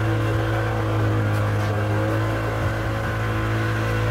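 Passenger tour boat's engine running steadily under way: an even low drone with steady tones above it.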